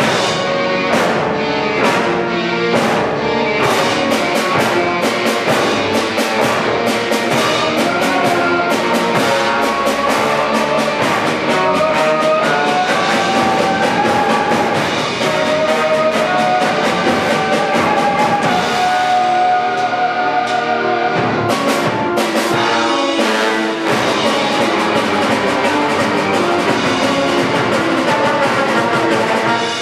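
Live ensemble of brass (trombone), electric guitars, bass and drum kit playing a loud, dense contemporary rock-classical piece. Sustained brass and guitar chords sit over steady drum hits, which drop out for a couple of seconds about two-thirds of the way through before coming back in.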